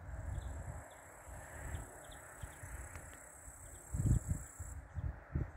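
A steady high-pitched insect trill with a few faint short chirps, over gusty wind rumbling on the microphone. The wind buffets hardest about four seconds in, and the trill cuts off near the end.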